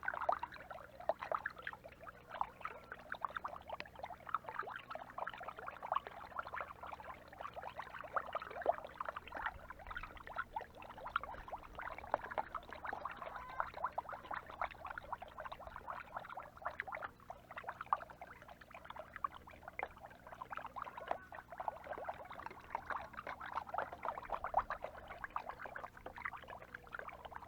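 Water being stirred in a container, a continuous irregular splashing and sloshing, as yogurt and diluted grape molasses are mixed into chickens' drinking water; a faint low hum sits underneath.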